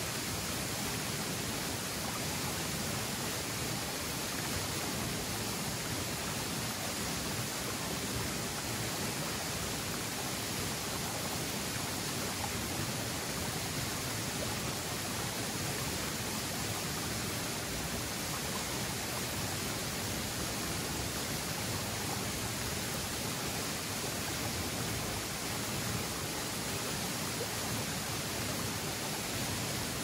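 Steady rushing of the Summerhill Force waterfall: an even, unbroken wash of falling water.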